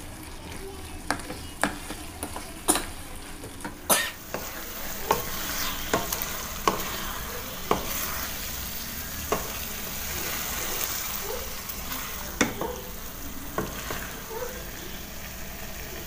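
Stir-frying chopped eggplant in chili paste in a stainless steel wok: a spatula scrapes and knocks against the pan at irregular intervals over the sizzle of the frying. The sizzle grows louder about four seconds in.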